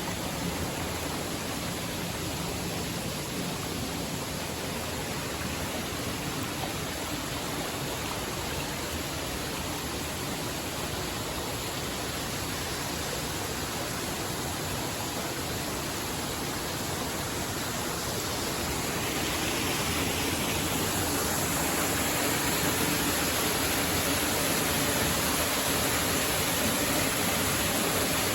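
Steady rush of flowing water, growing louder and brighter about two-thirds of the way through.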